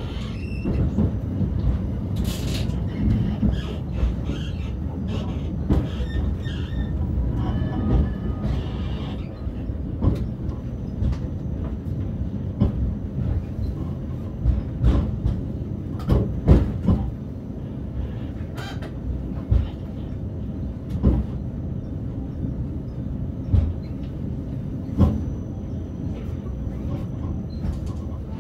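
Tram running on its rails, heard from on board: a steady low rumble with irregular sharp clicks and knocks from the wheels over rail joints and points.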